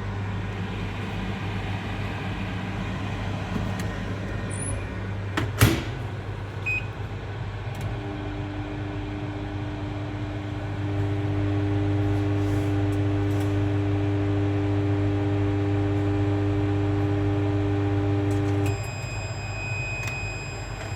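Microwave oven heating a bowl of ramen: after a sharp clack about six seconds in, the oven runs with a steady hum that gets louder partway through, then stops near the end and beeps to say it is done.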